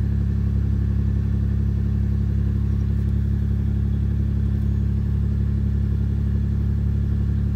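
Mitsubishi 3000GT VR4's twin-turbo V6 idling steadily, heard from inside the cabin. It is a cold fast idle at about 1,400 rpm, just after a cold start.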